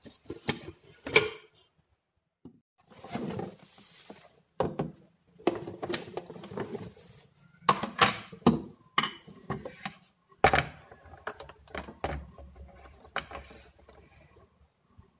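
Handling of a small electric cooker being unpacked from a cardboard box: cardboard rustling and scraping, with a series of separate knocks and clinks as its stainless steel parts and body are lifted out and set down.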